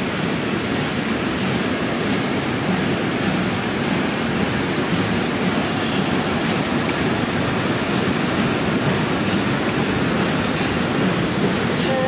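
Steam-hauled train running steadily along the track: a continuous rumble of wheels on rails with faint irregular clicks.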